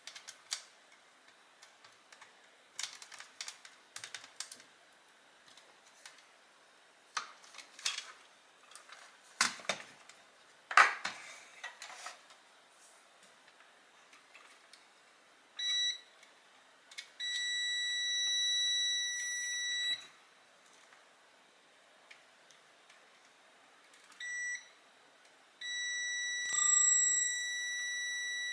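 Scattered clicks and knocks of small parts and tools being handled on a Dyson soft roller cleaner head. Later comes an electronic beeper's steady high tone: a short beep, then a beep held for about three seconds. A second short beep and another long one follow near the end.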